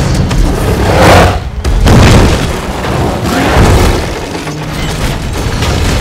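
Film sound effects of a giant gorilla landing and smashing through the city: deep booms and crashing debris, with the heaviest hits about one and two seconds in. Orchestral score plays underneath.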